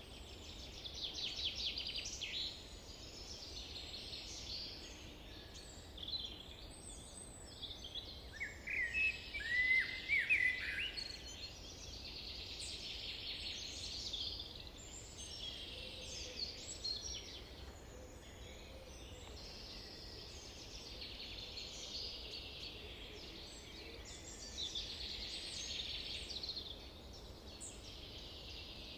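Several birds singing at once, a dense chorus of chirps and trills, with one bird's louder, lower run of short sweeping notes about eight to eleven seconds in. A faint steady low rumble runs underneath.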